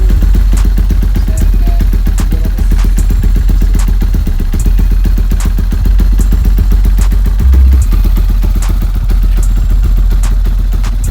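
Honda CRF150's single-cylinder four-stroke engine idling loudly with a rapid, even exhaust beat, with a brief louder low surge about seven and a half seconds in.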